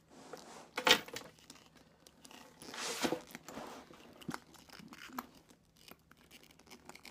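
Rustling and scraping as a Michael Kors handbag is handled, with a brief loud knock about a second in and a few light clicks of its metal padlock and key.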